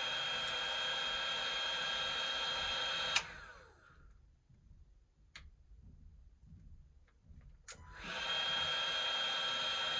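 Electric heat detector tester, a hot-air blower with a steady fan whine, heating a heat detector to set it off during fire alarm testing. It clicks off about three seconds in and starts blowing again about eight seconds in.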